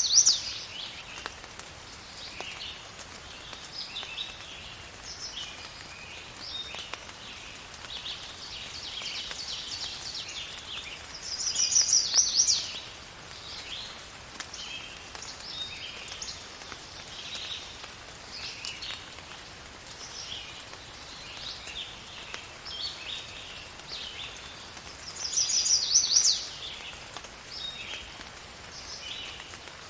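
Outdoor dawn-chorus-like birdsong: several birds chirping and calling continuously. One bird repeats a loud song ending in a fast trill three times, roughly every 13 seconds, over a faint steady hiss of rain.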